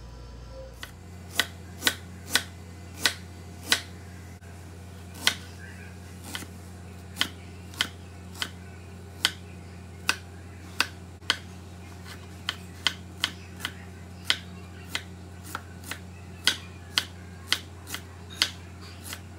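Chef's knife slicing fresh ginger on a cutting board: sharp, irregular knife taps on the board, about one or two a second, starting about a second in. A low steady hum runs underneath.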